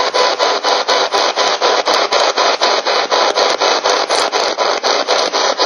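Spirit box (S-Box) sweeping rapidly through radio stations: loud hissing static chopped into short pulses about seven times a second.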